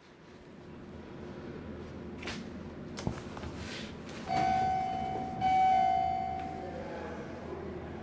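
Two steady electronic tones from an Epco elevator's signal, about halfway through: the first lasts about a second and stops abruptly, and the second, slightly higher, follows at once and fades out.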